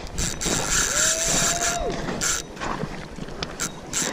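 Fishing reel's drag clicking and buzzing in several spurts as a hooked steelhead pulls line off the reel.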